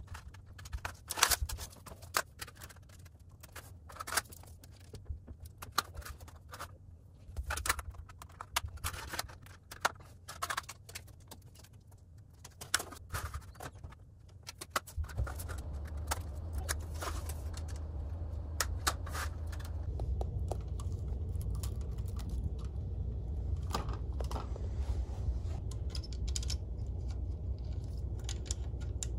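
O-scale three-rail track sections with plastic roadbed clattering and clicking as they are handled and snapped together. From about halfway a steady low hum comes in and grows louder, with a few more clicks over it.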